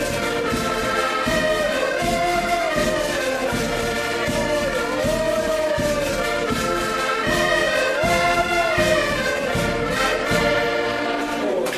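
An ensemble of accordions playing a dance tune in unison, with a steady bass drum beat under it. The music breaks off at the very end.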